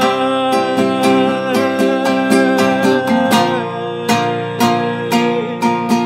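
Nylon-string classical guitar strummed in a steady rhythm, with a man's voice holding one long sung note for about the first three and a half seconds.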